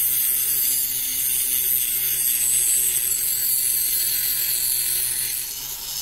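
Dremel rotary tool with a thin cutoff wheel grinding the end of a small steel grub screw flat and shorter: a steady high hiss of the wheel on metal over the hum of the tool's motor.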